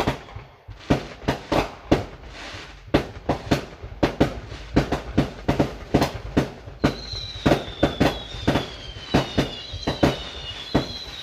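Backyard fireworks going off in a fast run of sharp bangs, roughly one or two a second. From about seven seconds in, several high whistles from whistling shells each slide slowly down in pitch. Heard from inside a car.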